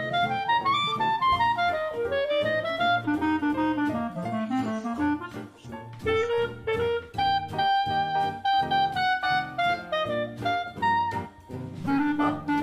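Background music: a jazzy tune with a saxophone-like lead melody over a steady beat.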